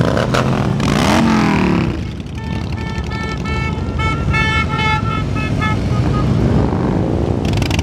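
A column of motorcycles rides past with engines running and shifting in pitch as they go by. In the middle a horn sounds a quick series of short toots over the engine noise, speeding up toward the end of the run.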